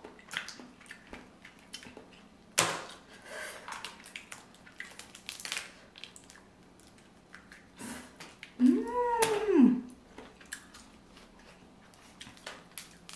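Seafood shells cracking and being handled by hand: scattered small clicks and crackles, with one sharp crack a little over two seconds in. About nine seconds in there is a short hummed "mmm" that rises and then falls in pitch.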